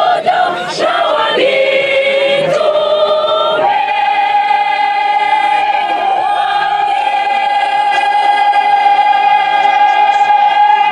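Church choir of mostly female voices singing a hymn, moving through a few short phrases and then, from about four seconds in, holding one long chord that cuts off together at the conductor's signal.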